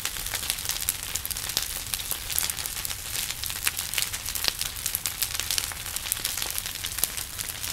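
Bonfire of a burning built frame structure crackling, with many sharp irregular snaps and pops over a steady hiss of flame.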